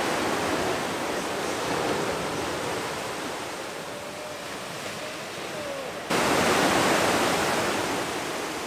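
Sea waves breaking and washing up a dark sand beach: a steady rush of surf that the speaker calls quite noisy. It jumps suddenly louder about six seconds in, then eases off.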